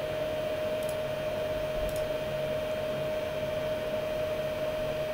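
Steady background hiss with a constant mid-pitched whine and a faint low hum. Two faint clicks come about a second apart near the start.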